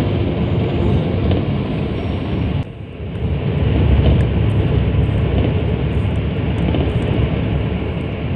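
Steady low rumble of a moving vehicle's engine, with road and wind noise. There is a short drop in level about two and a half seconds in.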